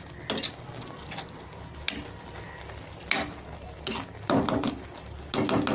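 A spatula stirring grated bottle gourd cooking in milk in a kadhai: wet scraping with several sharp knocks of the spatula against the pan, spaced irregularly, with a quicker cluster near the end.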